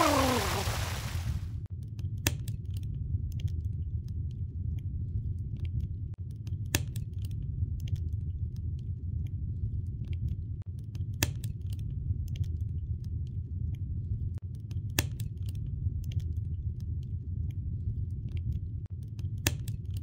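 Wood fire burning in a rocket mass heater's feed tube: a steady low rumble with small crackles and a sharper pop every four or five seconds. It opens with the tail of a falling swoosh.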